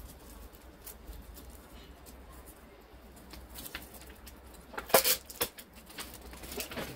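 Folded paper of an origami dragon rustling and crinkling as it is handled and pressed on a table, with a short burst of loud paper crackles about five seconds in.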